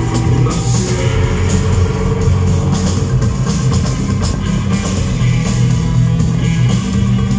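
Rock band playing live through the stage PA at a soundcheck: electric guitar and bass over a drum kit, with steady, even drum and cymbal hits.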